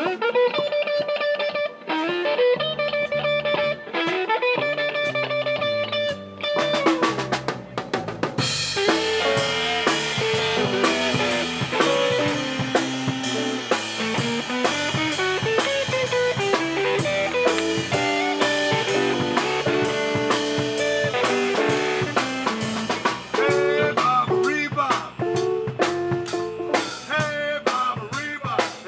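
A live blues-rock band. A lead electric guitar phrase opens the piece, and about eight seconds in the drum kit comes in and the full band plays on with the drums keeping a steady beat.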